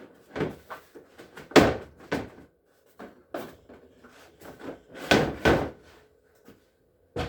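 A run of clunks, knocks and rustling as the unboxed items are handled: a hard plastic chainsaw case and its packaging being moved and opened. The loudest knocks come about one and a half seconds in and again about five seconds in.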